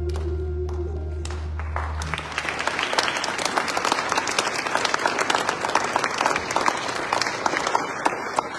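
The last held chord of a song's musical accompaniment dies away about two seconds in, and an audience breaks into applause that tapers off near the end.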